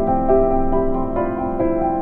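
Background music: a keyboard melody that sounds like piano, with a new note about every half second.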